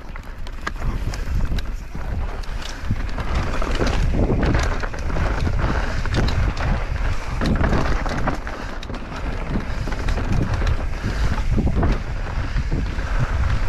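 Wind buffeting the microphone of a mountain bike descending a dirt trail at speed, growing louder over the first few seconds, with tyres crunching over the dirt and many short clicks and knocks from the bike rattling over the rough ground.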